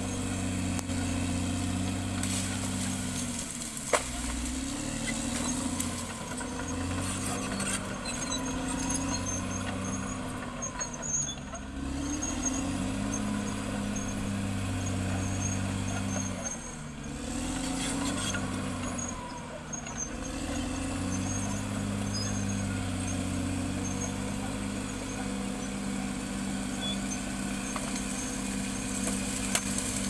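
Caterpillar D6R XL crawler bulldozer's diesel engine running under load as it pushes dirt, the engine note dropping and picking up again several times. There is a sharp knock about four seconds in.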